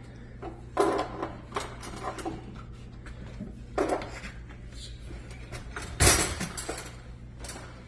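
Several sharp clacks and rattles of hard parts being handled at a dishwasher, the loudest about six seconds in, over a steady low hum.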